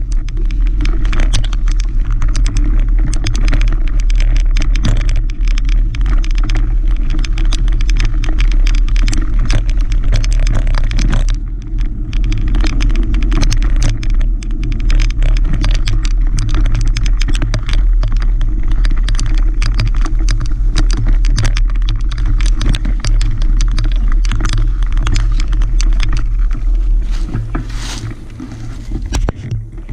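Mountain bike riding over dirt singletrack, heard from the bike itself: a steady low rumble of wind on the microphone and tyres on the trail, under a constant clatter and rattle as the bike goes over bumps, roots and leaves. Near the end the bike slows and the noise dies down.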